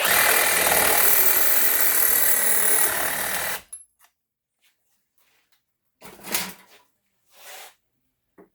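A power saw cutting through a copper fitting on a hot water heater valve, running hard for about three and a half seconds, then cutting off suddenly. A short knock of handling follows about six seconds in.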